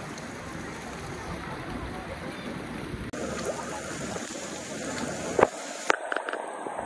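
Running, splashing water from temple fountains and pools, with a faint murmur of voices. The sound changes abruptly about three seconds in and again near the end, where a few sharp knocks are heard.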